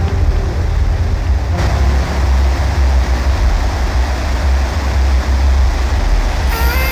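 Fireworks display crackling and rumbling as a dense, steady wash of noise over a heavy low rumble. The show's music comes back in near the end.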